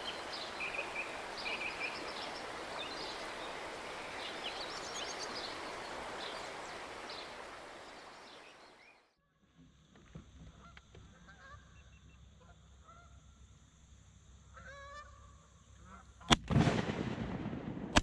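A steady rushing noise with small birds chirping, then Canada geese honking, then a single loud shotgun blast about sixteen seconds in, and another right at the end.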